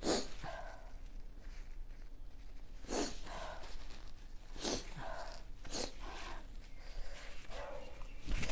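A person sniffling and drawing sharp breaths, about four times, from the burn of very spicy food.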